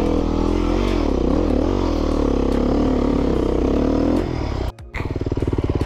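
Dirt bike engine running under a rider, its pitch rising and falling as the throttle is worked. Near the end the sound cuts out abruptly for a split second, then the engine is heard again.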